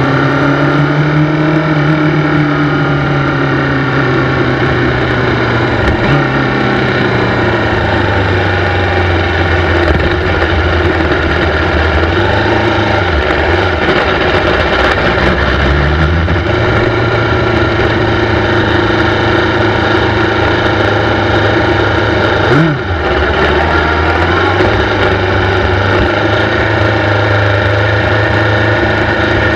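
Kawasaki 400cc race bike's engine heard from an onboard camera, ridden at low speed on part throttle. Its pitch sinks over the first few seconds, then holds fairly steady with small rises and falls, dipping sharply for a moment about three-quarters of the way through.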